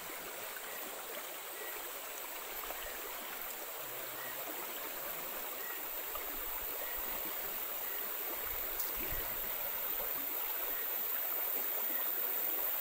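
Shallow stream running over a sand and gravel bed: a steady rush of water that slowly grows louder.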